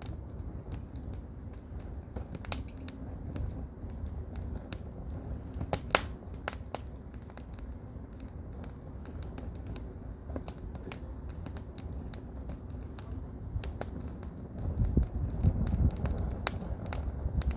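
Burning firewood crackling, with irregular sharp pops and snaps, over a low rumble of wind that gusts louder near the end.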